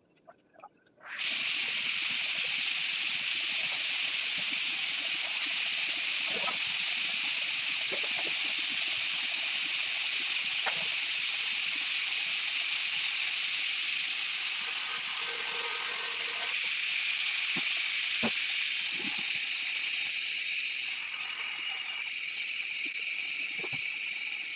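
A workshop tool starts about a second in and runs with a loud, steady, high hiss. Twice it grows louder with a high whistle, then it winds down at the end with falling pitch.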